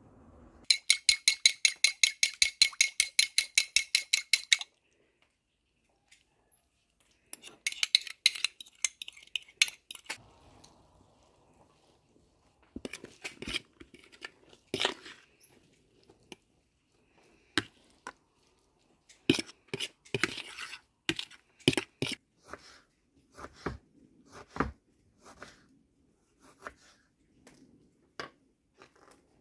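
A kitchen knife chopping fast on a wooden cutting board, about seven evenly spaced strokes a second for some four seconds with a light metallic ring. Then a metal utensil clinks and scrapes against a plastic bowl while scooping chopped salad. Later come separate sharp knocks of the knife on the board while slicing a tomato.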